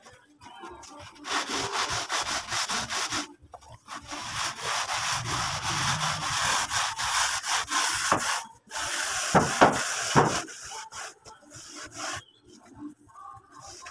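Hand tool scraping and rubbing over a cement-rendered wall in fast back-and-forth strokes, in a few long runs that fade near the end.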